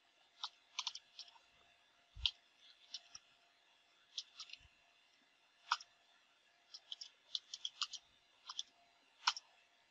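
Computer keyboard keys clicking faintly in short, uneven runs of keystrokes as a terminal command is typed.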